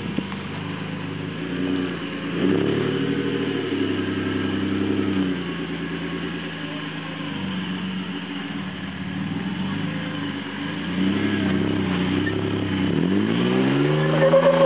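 Lifted Holden Jackaroo 4WD's engine revving under load as it climbs a rock step. The revs rise and fall in several pushes, with a steep rise near the end.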